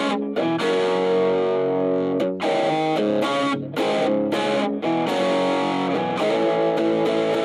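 Electric guitar played through VOX Valvenergy overdrive pedals into a Spark Go amp: overdriven chords left to ring, with a few brief choked breaks between phrases.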